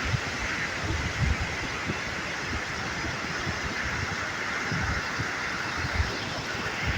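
Sea waves washing in a steady hiss, with wind gusting and buffeting the microphone in irregular low thumps.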